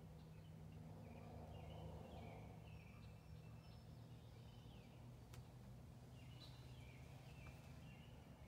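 Near silence: faint woodland songbirds giving short, repeated chirping notes over a low steady hum, with one sharp click about five seconds in.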